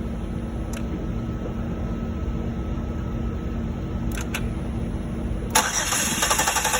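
A steady low hum, then about five and a half seconds in a 2006 Chevrolet Impala's engine is cranked by the starter: a loud, fast, even chugging that does not catch. This is the crank-no-start the car has, traced to no fuel pressure.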